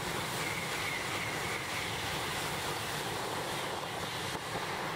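Tohoku Shinkansen train passing at high speed just out of a tunnel: a steady rush of air and rail noise, with a faint high whine in the first couple of seconds.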